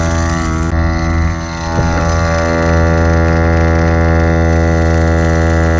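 Viair 88P portable 12-volt air compressor running steadily with a droning hum as it pumps a car tire up to about 40 PSI.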